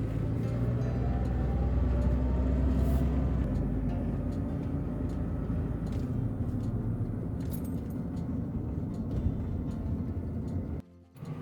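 Steady low road and engine rumble of a car heard from inside while driving, with the engine note rising over the first few seconds. The sound cuts out briefly near the end.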